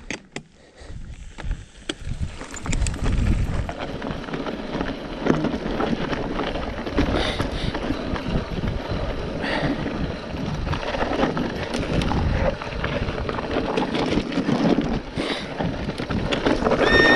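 Mountain bike descending a dry, loose, stony trail: tyres crunching over gravel and rocks, with constant rattling and knocks from the bike as it goes over bumps, starting about two seconds in. Near the end a loud high squeal with several pitches sets in.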